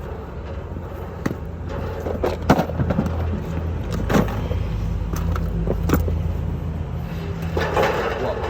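A motor running with a steady low hum, with scattered sharp clicks and knocks over it.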